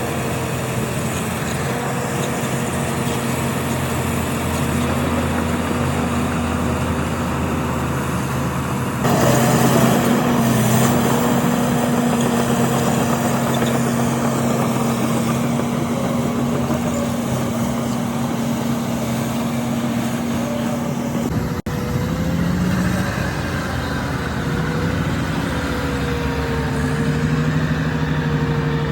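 Diesel engines of heavy earthmoving machines running steadily. The sound gets louder about nine seconds in and changes abruptly about two-thirds of the way through.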